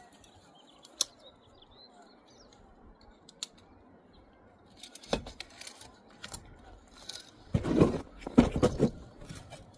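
Bricklaying with a trowel and mortar: a couple of sharp clicks, then from about halfway a busy run of scrapes, taps and knocks, loudest near the end, as mortar is worked and a brick is set in the course.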